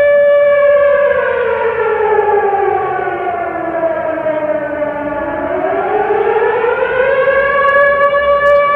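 Factory siren sounding a loud, steady wail that slides down to about half its pitch over some four seconds, then climbs back up to the steady tone near the end.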